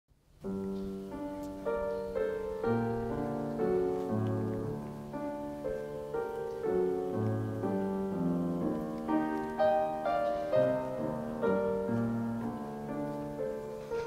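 Piano music starting about half a second in: low bass notes under a slow melody.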